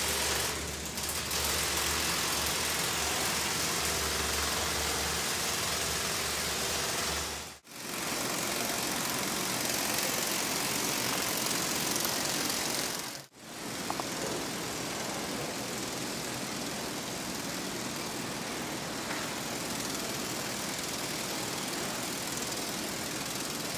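Battery-powered 3D-printed flapping-wing ornithopter in hovering flight: its small motor and flapping wings make a steady buzz, broken twice by brief cuts. After the second cut it is a little quieter, as the ornithopter descends on low battery power.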